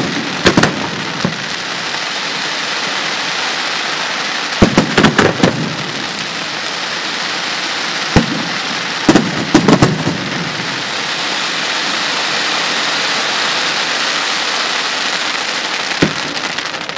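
Aerial firework shells bursting over a steady hiss: single bangs about half a second in, around 8 s and near the end, and quick clusters of bangs around 5 s and between 9 and 10 s.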